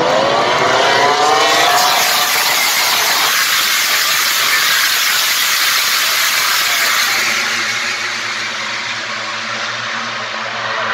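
Several MotoGP racing motorcycles, 1000 cc four-stroke prototypes, passing one after another at full throttle. Their engine notes rise in pitch as they accelerate over the first couple of seconds, then blend into a loud, dense wash, with a lower, steadier engine note in the last few seconds.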